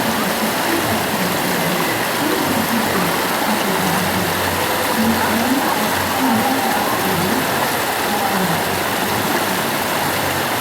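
The Ganges rushing steadily, a constant loud noise of fast-flowing river water.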